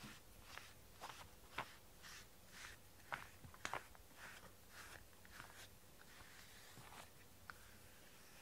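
Faint, soft swishing strokes of a rubber grooming brush through a cat's fur, about two a second, with a few sharper clicks among them; the strokes thin out near the end.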